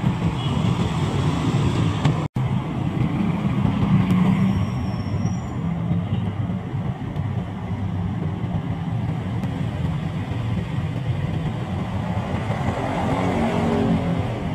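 Street traffic of motor scooters and cars: small engines running steadily close by, with a broad road rumble. The sound drops out for an instant about two seconds in.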